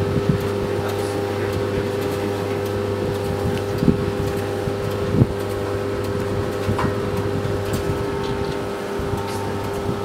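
Eudora Luftikus EU 455 S washer-dryer running, a steady machine hum with two held tones. A couple of short knocks about four and five seconds in.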